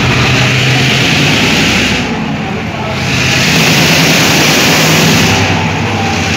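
Sri Lanka Railways Class M2b diesel-electric locomotive moving off and passing close by, its diesel engine working loudly. The sound dips briefly about two seconds in, then grows louder again as the engine side goes past.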